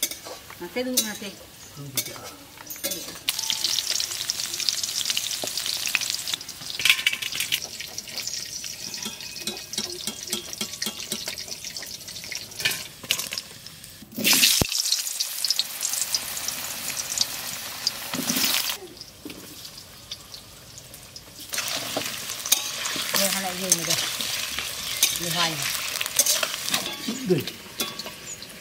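Oil sizzling in a metal wok over a wood fire as food fries, with a metal spatula stirring in the pan. The sizzle swells and fades in long stretches.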